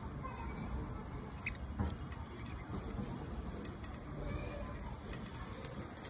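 Pet budgerigars moving about a cage: scattered light clicks and taps on the perches and bead toys, with a few brief faint chirps, over a steady low rumble.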